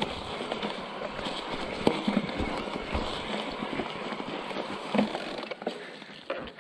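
Electric mountain bike riding over rough, grassy ground: a steady rush of tyre and ride noise with frequent irregular knocks and rattles from bumps. The noise fades near the end as the bike slows.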